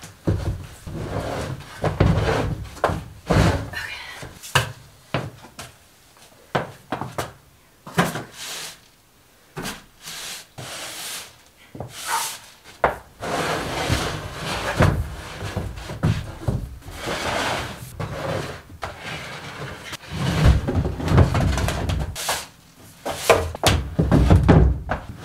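A broom sweeping a plywood floor, its bristles scraping in repeated strokes, among knocks and clatters of wood. Heavier bumps come near the end as a water tank is shifted into place.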